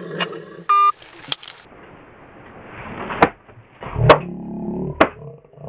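A short electronic beep from a cell phone as the call is ended, then three sharp hand claps about a second apart, the middle one the loudest, over a low rumble.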